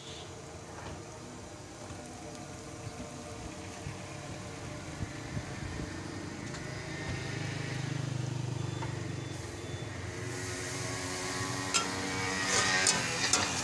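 Egg mixture sizzling on a hot flat steel griddle (tawa), with a vehicle rumbling past on the road. The hiss grows louder after about ten seconds, and sharp clicks near the end come from a spatula striking the griddle.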